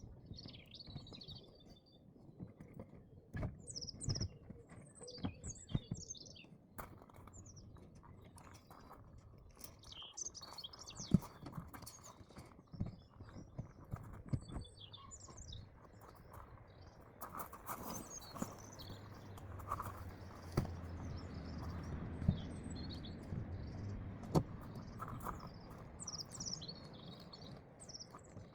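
Small birds chirping throughout, with scattered knocks and thumps of gear being loaded into a campervan, the loudest a little over a third of the way in and again about three quarters in. A low steady hum comes in during the second half.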